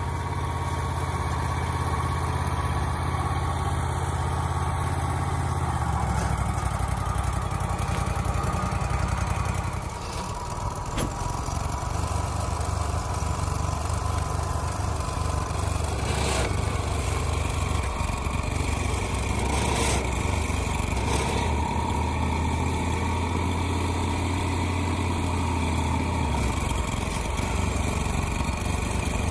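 Wood-Mizer LT35HD sawmill's engine running steadily, with a steady whine above its hum. Its note shifts about six seconds in, dips briefly around ten seconds, and changes again near the end, with a few faint knocks in between.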